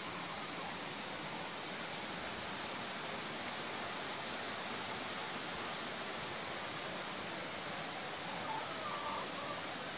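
Steady, even rushing noise of outdoor ambience, with a faint short chirp near the end.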